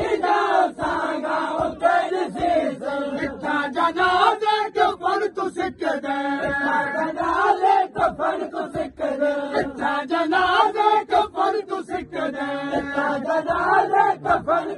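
A group of men chanting a nauha, a Shia mourning lament, together, with a steady beat of sharp slaps from matam chest-beating keeping time.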